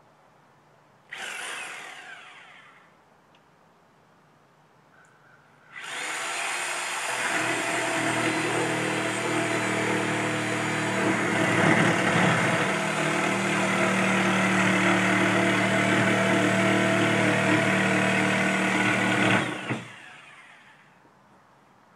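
Sawzall reciprocating saw triggered briefly about a second in and winding down, then running steadily for about fourteen seconds as it cuts into a projection TV cabinet, before winding down near the end.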